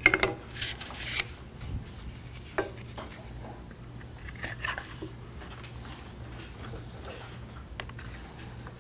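Thin wooden dovetailed box sides being handled, knocking and sliding on a scroll saw's metal table and pressed together at the joints. A quick cluster of clacks comes first, the loudest part, then a few scattered knocks and rubs, over a steady low hum.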